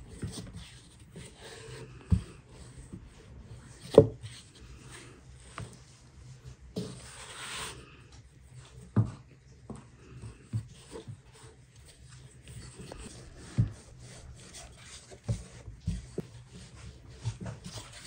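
Wooden rolling pin rolling out thin dough on a floured wooden board: soft rubbing with irregular knocks of wood on wood, the loudest about four seconds in, and a brief rustle near the middle.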